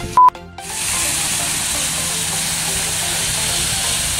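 A steady, even hiss that sets in about a second in, after a brief loud blip with a short tone.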